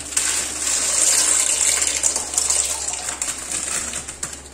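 Dry macaroni poured from a plastic packet into a pan of hot water: a continuous rushing, pouring sound that fades near the end.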